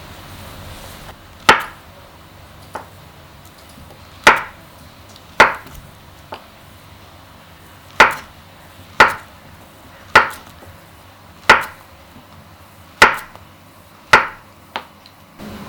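A knife chopping on a cutting board in slow, single strokes: nine loud chops about a second apart, with a few lighter taps between them.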